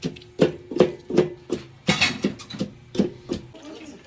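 Rapid rhythmic knocking of a cooking utensil, about two or three strikes a second, each with a short ring, stopping about three and a half seconds in.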